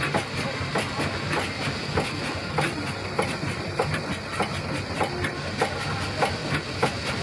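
Vintage stationary engine running, with a steady beat of evenly spaced knocks over a continuous low hum and hiss.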